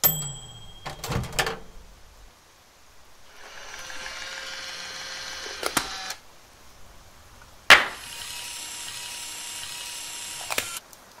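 A short bright tone with a few clicks at the start, then two stretches of steady mechanical whirring, each switched on and off with a sharp click.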